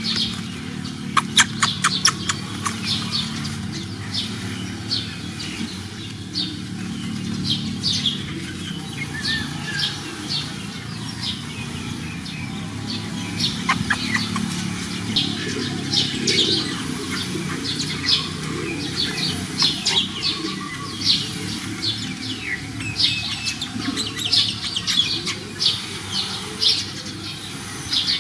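Small birds chirping, with short high chirps coming again and again. A few sharp clicks come about one to two seconds in.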